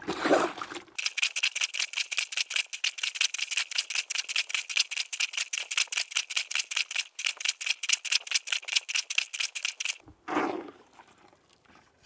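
Breathing Mobile Washer, a hand plunger laundry washer, pumped quickly up and down in a bucket of rinse water and diapers. It makes an even swishing and sloshing, about five strokes a second, as the soap is rinsed out, and stops about ten seconds in.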